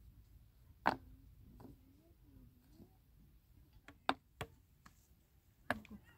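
A few sharp, separate knocks: one about a second in, two close together around four seconds in, and one near the end.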